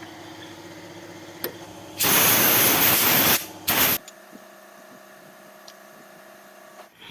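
Compressed-air blow gun blasting through a small engine filter to clean it: one hiss of about a second and a half, then a short second blast just after.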